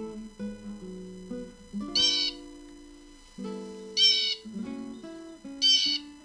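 Blue jay giving three harsh, nasal calls, each about half a second long and spaced roughly two seconds apart, over acoustic guitar background music.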